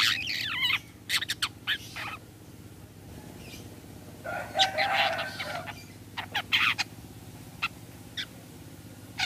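Long-tailed shrike calling: a burst of sharp, short notes, some sliding in pitch, at the start. A harsher chattering call follows about four to five seconds in, then a few single sharp notes.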